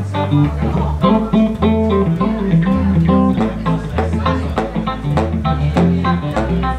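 Live band playing an instrumental intro: electric guitar and electric bass guitar with a saxophone, in a steady beat.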